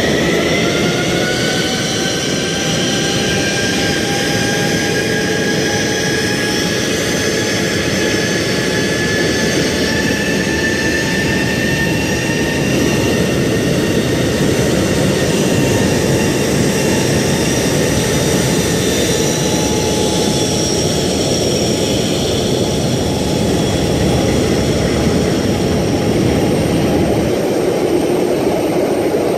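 Airbus A321 jet engines at taxi power as the airliner rolls close past: a steady roar topped by a high turbine whine. The whine rises over the first couple of seconds, then holds.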